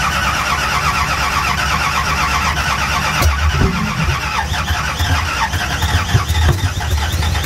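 Drag car's engine being cranked over by its starter motor: a steady whirring chatter that does not catch and run, with a short low cough about three seconds in.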